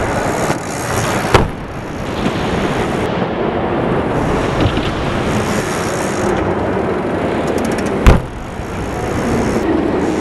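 Two heavy thuds about seven seconds apart as BMX bikes land on a resi landing ramp, over a steady loud rumbling noise.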